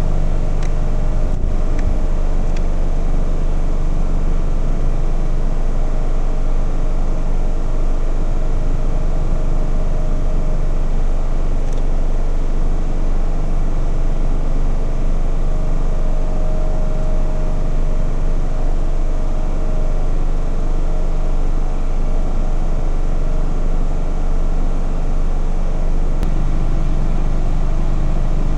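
Steady machine hum of an ACHI IR6500 infrared BGA rework station running while it heats the board for reflow: a low drone with several steady tones over it. A few faint clicks come about a second in.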